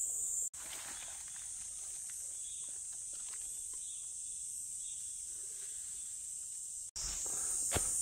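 A steady, high-pitched insect chorus, with footsteps on a dirt trail in the first half second and again near the end. The sound drops out abruptly twice, and the footsteps thin out between the dropouts.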